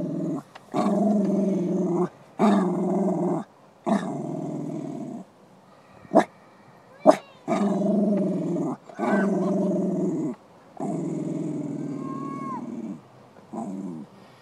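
A dog growling in a long series of rough growls, each lasting a second or two, separated by short breaths. A few short, sharp barks come in between the growls.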